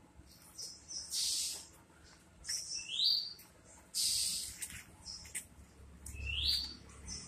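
Caged songbirds calling: short harsh, scratchy chirps, with a quick rising whistled note twice, about three seconds and six and a half seconds in. A low rumble comes in near the end.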